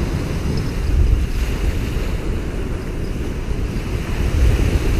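Wind gusting on the microphone over small waves breaking and washing up a sandy beach.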